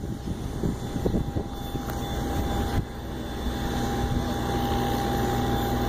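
Distant jet engines running with a steady whine over a low rumble, growing slightly louder in the second half. Gusts of wind buffet the microphone in the first second or so.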